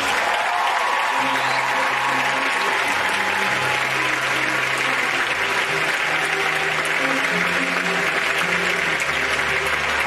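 Theatre audience applauding steadily over the opening bars of a musical number, with held low notes sounding underneath.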